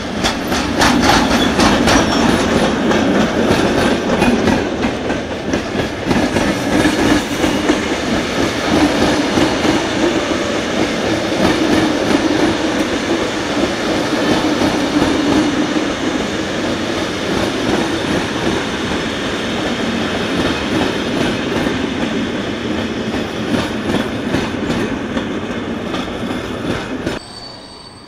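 Loud passenger train of coaches hauled by an electric locomotive rolling past, wheels clicking over rail joints and points over a steady rumble. The sound cuts off suddenly near the end.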